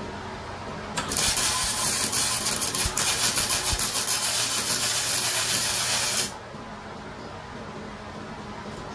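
Electric arc welding on a steel Ford 9-inch rear axle housing: the crackling sizzle of the arc starts about a second in, runs for about five seconds, and cuts off suddenly.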